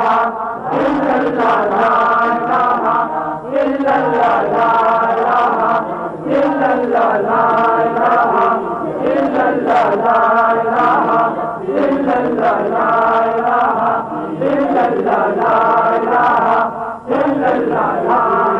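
A group of voices chanting a short phrase in unison, over and over, with brief breaks between the repeats.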